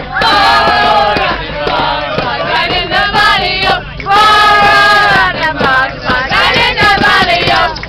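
A group of men and women singing together loudly in unison, holding long notes, with maracas shaken along.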